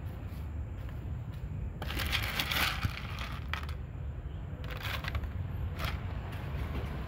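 Crinkling, crackling handling noise of a foam food tray and plastic packaging being set down on paving. There is a longer burst about two seconds in and two short ones later, over a steady low rumble.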